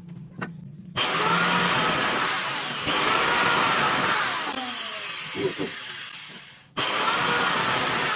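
Modified angle grinder working wood: a loud, rushing grinding noise that swells and eases as the tool bites and lets up. It cuts out abruptly about seven seconds in and comes straight back.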